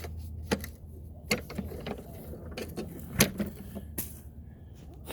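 Scattered sharp clicks and knocks of mower parts being handled and fitted back into place during reassembly, about five in all, over a low steady hum.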